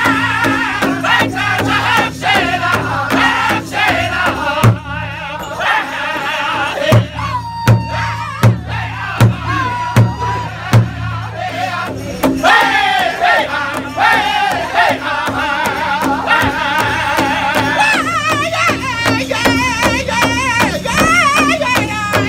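Powwow drum group singing in unison while striking a large shared hide drum with drumsticks in a steady beat. In the middle the singing thins and a run of six loud, evenly spaced single beats stands out, then the full high-pitched singing comes back with a wavering tone over the drum.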